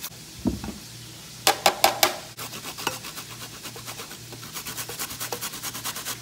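Metal spoon stirring sauce in a dish: a few sharp clinks against the side about a second and a half in, then a fast, even run of scraping strokes.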